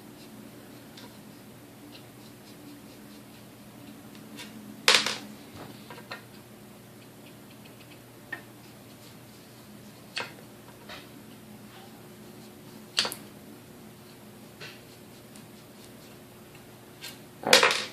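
Scattered sharp clicks and clinks, about seven spread over the stretch, of a screwdriver and loosened screws and metal parts being handled while a KitchenAid 3C mixer is taken apart, over a faint steady hum.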